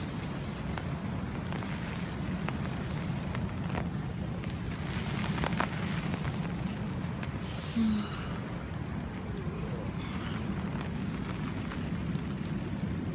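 Storm wind buffeting the microphone in a steady low rumble, with scattered sharp ticks and pops over it.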